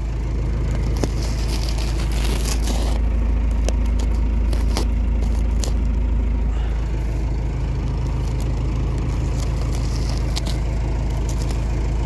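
Tractor engine idling steadily, with short crackles and scrapes of a pocket knife slitting the plastic wrap on a row of straw bales.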